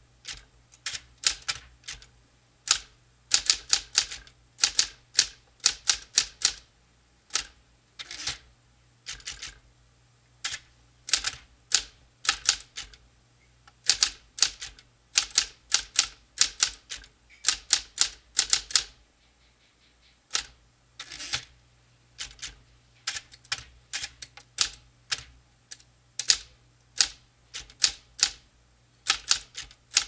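Smith-Corona typewriter typing: sharp key strikes in quick runs with short pauses between words and lines, and one longer pause about two-thirds of the way through. A steady low hum lies under the strikes.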